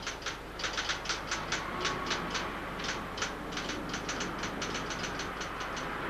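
Typewriter keys clacking in quick, irregular runs of about five or six strokes a second, with a short pause around the middle, over a steady background hiss.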